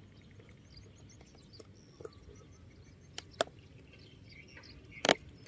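Open-air background with small birds chirping faintly, a few light clicks as a child digs in sand with a small plastic scoop, and one louder sharp knock about five seconds in.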